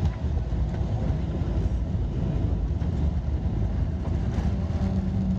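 Boeing 777 on its landing roll heard from inside the cabin: a steady loud rumble of wheels and airframe on the runway, with a jolt right at the start as the main gear touches down and the ground spoilers deploy. A steady hum comes in near the end.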